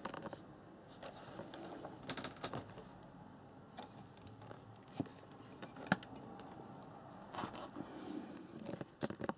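Hands handling a hard-plastic RC buggy: scattered small clicks, taps and rattles, with two sharper knocks about five and six seconds in.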